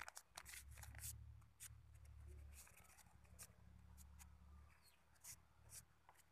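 Faint crinkling and rustling of a sheet of paper being folded and creased by hand: a string of short, crisp crackles.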